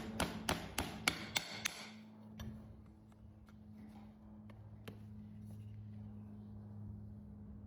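A quick run of sharp, even strikes, about three a second, from hoof-trimming work on a horse's hoof. They stop about two seconds in, and a few single knocks follow over a steady low hum.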